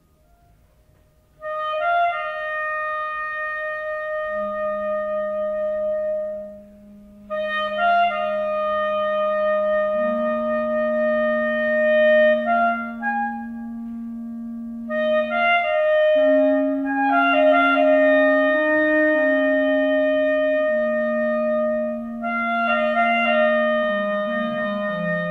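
Two clarinets playing a slow duet in long held notes, one sustaining a high line over the other's low notes. They come in about a second and a half in after near silence, and the upper part drops out briefly near the middle while the low note holds.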